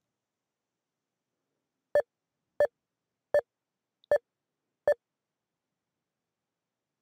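Five short electronic beeps from cochlear implant programming software, evenly spaced about 0.7 s apart and starting about two seconds in, each one the same mid-pitched tone.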